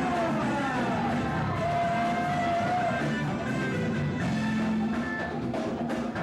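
Music with drums and a plucked-string accompaniment; a melody line holds one long note for about a second and a half, starting near the two-second mark.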